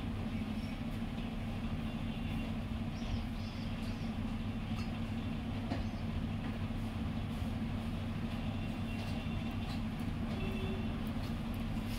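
A steady low machine hum, with a few faint clicks and taps over it.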